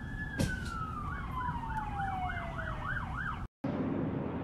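Emergency vehicle sirens, two at once: one wail slowly falling in pitch, the other a fast yelp sweeping up and down about three times a second. A sharp click comes about half a second in, and near the end the sirens cut off abruptly, giving way to steady street background noise.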